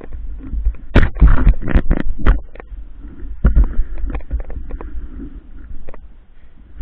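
Handling noise from a body-worn camera as the wearer walks: irregular heavy thumps of footsteps and clothing rubbing on the microphone, loudest in the first couple of seconds.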